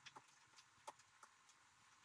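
Near silence with a few faint, sharp clicks, about four in two seconds.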